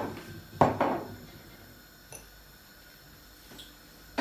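A drinking glass knocking and clinking against a wooden tabletop as it is picked up and handled: a knock at the start, two more close together about half a second later, and a faint click about two seconds in.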